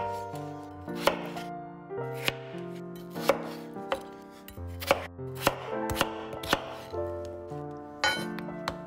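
Chef's knife cutting peeled potatoes into cubes on a wooden cutting board: sharp knocks of the blade striking the board, unevenly spaced at about one to two a second.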